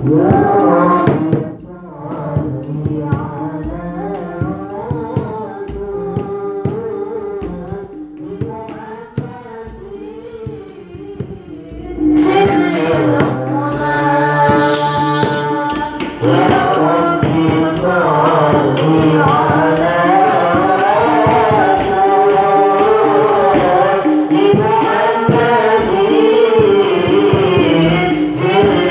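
A woman singing an Islamic sholawat devotional song into a microphone, accompanied by hand drums and a jingling tambourine. About twelve seconds in the accompaniment grows louder and fuller, with bright jingles.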